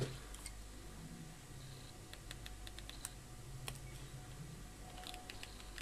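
Small scissors snipping and nicking the thin, hardened insulation of old transformer lead wires while stripping them: faint light clicks, bunched around the middle and again near the end.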